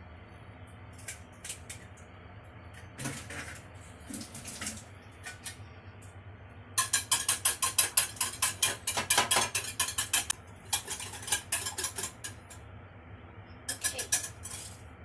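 Wire whisk beating eggs in a bowl: fast runs of sharp clinking strokes against the bowl, starting about seven seconds in and breaking off twice briefly. Before that, only a few scattered light clicks.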